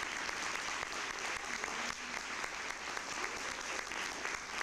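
Theatre audience applauding steadily, a dense unbroken patter of many hands clapping.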